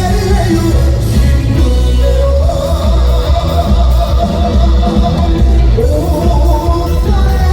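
Live trot band music played loud through a PA system, with heavy bass and a guitar-led melody.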